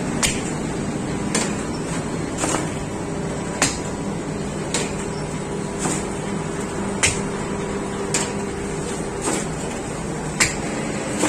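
Bakery machinery running with a steady hum, with a sharp click or knock repeating evenly about once every second, like a machine working through a regular cycle.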